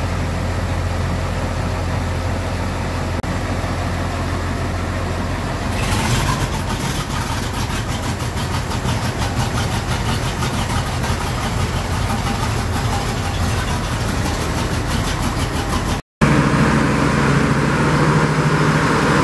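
International Harvester 350 Utility tractor engine running just after a cold start, smoke pouring from its exhaust stack. About six seconds in its note turns harsher and a little louder, with a fast even firing beat. After a short break near the end, a steadier engine drone takes over.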